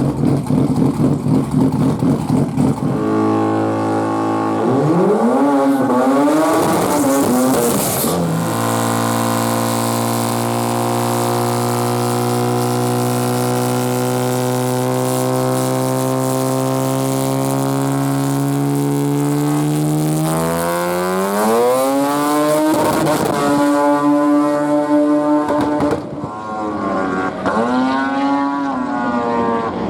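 Twin-turbo Mazda 13B rotary engine in a Volkswagen Notchback, idling choppily, then revved up and down twice. It then runs steadily for about twelve seconds with its pitch slowly creeping up, climbs sharply about twenty seconds in, and is blipped again near the end.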